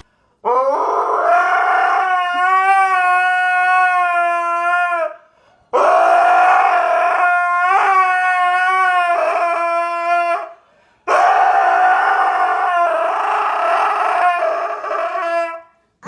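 A dog howling: three long howls of about four to five seconds each, with a wavering pitch and short breaks between them.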